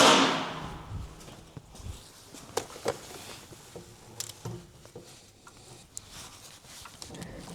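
Metal knocks and scrapes as a tubular 4-2-1 exhaust manifold is worked into place against the engine. A loud clank at the start rings and fades over about half a second, followed by scattered light knocks and clicks.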